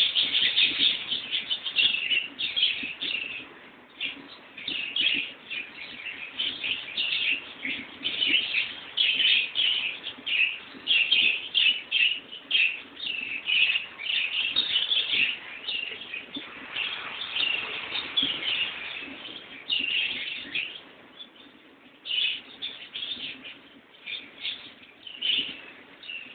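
Small birds chirping, with many short chirps overlapping almost without a break and a brief lull about three quarters of the way through.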